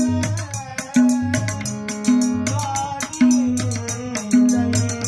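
Classical Kumauni Holi song performed live: tabla playing a steady cycle with a deep stroke about once a second, under held instrumental notes and singing.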